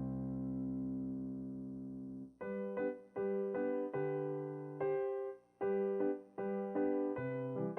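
Background piano music: a held chord fading away, then a gentle run of separate notes and chords.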